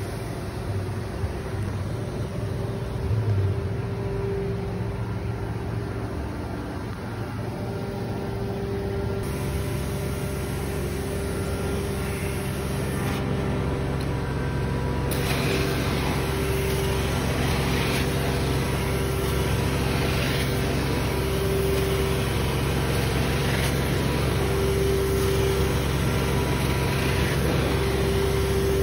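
Hot-water carpet extraction wand spraying and sucking water out of carpet, over the steady drone of the extraction machine's vacuum and engine. About halfway in the hiss of spray and suction grows louder, rising and falling with each pass of the wand every couple of seconds.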